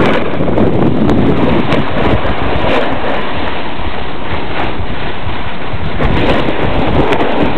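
Wind rushing over the camera's microphone during a ski run downhill, mixed with the steady scrape of skis sliding on snow.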